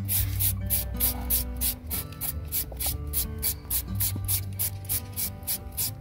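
Papaya being shredded by hand: quick, even scraping strokes, about four a second, over background music.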